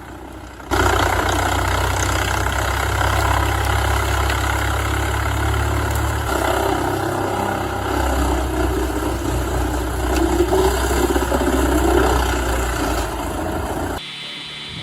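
Large wood chipper driven by a 550 horsepower Scania diesel engine, running hard with a steady low engine drone under the noisy grinding of branches being shredded. It starts about a second in and cuts off sharply near the end.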